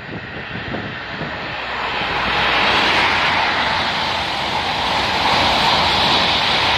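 A train passing at speed: a rushing roar that builds over the first two seconds, then holds steady and loud.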